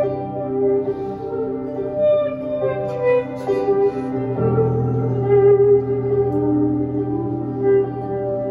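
Slow worship music from a live band: held keyboard chords under a sustained, singing electric-guitar lead line. A fuller, deeper chord comes in about four seconds in.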